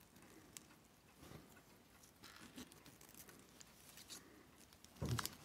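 Faint scratching and scraping of a wooden toothpick picking grime out of the holes of a stainless steel watch case, with a small click about half a second in. A louder knock comes near the end.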